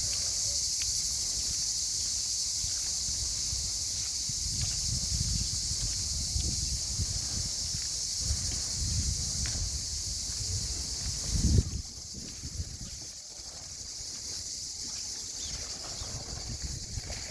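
Cicadas buzzing in a dense, steady high chorus that drops somewhat in level about twelve seconds in, with low wind rumble on the microphone and a single thump just before the drop.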